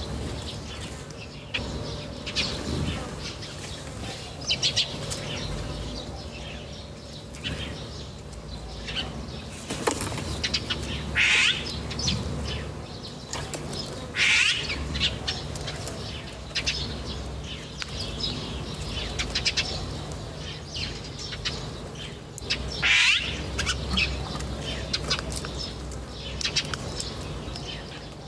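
Small birds chirping continually, with three loud shrill sweeping calls about eleven, fourteen and twenty-three seconds in, over a low steady rumble.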